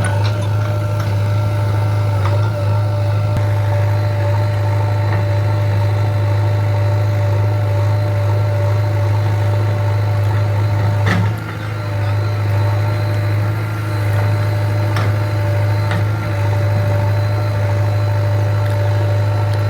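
JCB 3DX backhoe loader's engine running steadily with a deep, even hum and a steady higher whine over it, with a single sharp knock about eleven seconds in.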